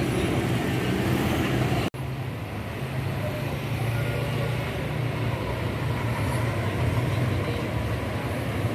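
A large tour coach's engine running with a steady low hum, amid traffic noise. The sound drops out for an instant about two seconds in.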